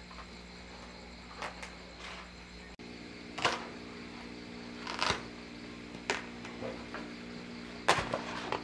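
Plastic motorbike body panels being handled on a concrete floor: about five sharp hollow knocks and clacks with some scraping, the loudest near the end, over a steady low hum.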